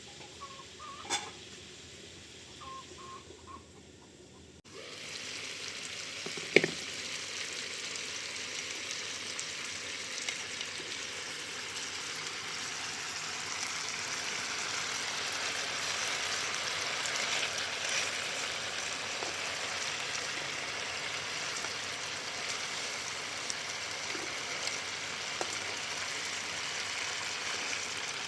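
Food frying in oil: a steady sizzling hiss that starts suddenly about five seconds in, after a few faint chirps, with one sharp click a little later.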